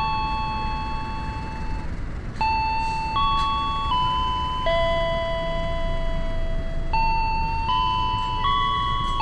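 A slow melody of sustained electronic chime tones over a railway station's public-address system, one bell-like note after another with a short pause about two seconds in. The low rumble of a departing passenger train runs underneath.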